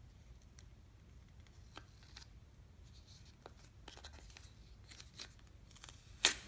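Faint crackling and ticking of the paper backing being worked and peeled off a piece of non-skid tape by hand, with one sharp snap near the end.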